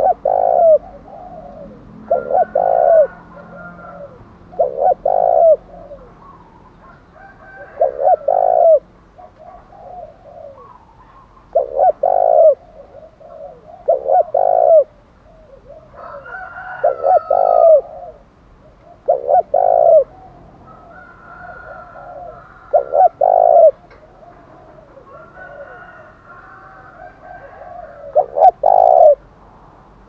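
Spotted dove cooing in repeated loud phrases of two or three short notes every few seconds, with a longer pause near the end. This is the rousing 'thúc đấu' challenge coo that keepers use to lure wild doves. Fainter, higher calls from another bird come between the phrases.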